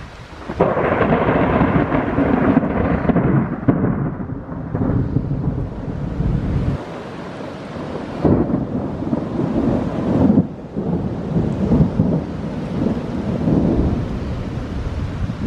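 Thunder: a sudden loud crack about half a second in that rolls into a low rumble lasting several seconds, then a second burst of rumbling about eight seconds in.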